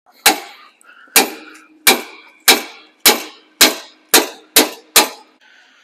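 Nine hammer blows on steel, striking a wrench on a truck air-brake chamber's mounting nut to break loose a stubborn nut. Each blow clangs with a brief metallic ring, and the blows come faster toward the end.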